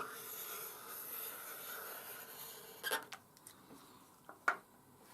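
Faint handling sounds while glue is run along the edge of a card model: a click, about three seconds of soft hissing rub, then a few light clicks.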